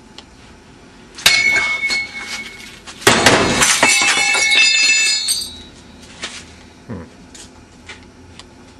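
A sharp crash with ringing about a second in, then a longer, louder crash of hard objects clattering and ringing for about two seconds.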